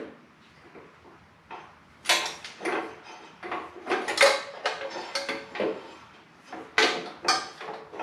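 Irregular clunks, knocks and short scrapes of metal and hard plastic as a motorcycle oil bag is worked loose from the frame by hand. Quiet for the first second or so, then a busy run of clatters.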